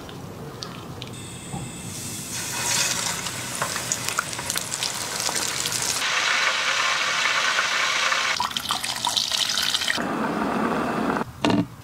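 Flour-coated chicken legs deep-frying in hot oil: a loud, steady sizzle full of fine crackles that starts about two seconds in. Near the end the sound changes to a pot of liquid bubbling.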